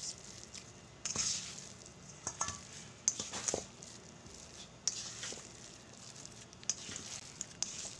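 A spatula folding and pressing thick chocolate chip cookie dough in a metal mixing bowl: irregular scrapes and squishes, with light clicks of the spatula against the bowl.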